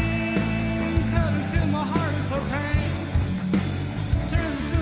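Rock music, an instrumental passage: a lead line of sliding, bending notes over steady drums and bass.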